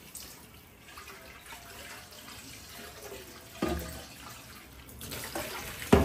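Water running and splashing in a kitchen sink, with two sharp thumps, the louder one near the end.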